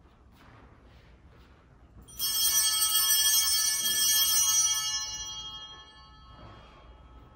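Altar bells rung in a single peal starting suddenly about two seconds in: a bright, many-pitched ringing held for a couple of seconds, then dying away. It is rung as the priest genuflects at the altar during the communion rite.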